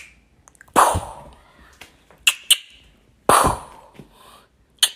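Pretend gunshots for a finger-gun game, heard twice: two quick clicks like a gun being cocked, then a bang that fades out.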